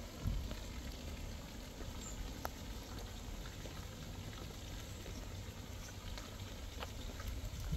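Faint outdoor ambience: a soft crackling hiss with a few faint clicks over a low rumble.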